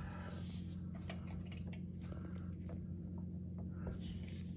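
Faint scattered clicks and scrapes of gloved hands working a wrench on a rear drum brake's bleeder screw, over a steady low hum.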